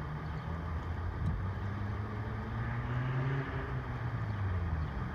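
A large vehicle's engine running with a low rumble, its pitch rising around the middle and dropping back near the end.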